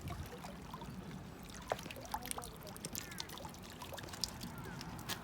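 Faint water trickling and lapping, with scattered small clicks and knocks.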